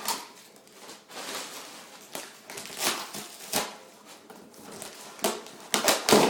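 Packaging being unwrapped by hand: irregular bursts of rustling, crinkling and tearing, loudest near the end.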